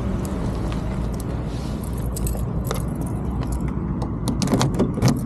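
A bunch of keys jangling as they are handled, then clicks and scrapes of a key going into a car door lock near the end, over a steady low rumble.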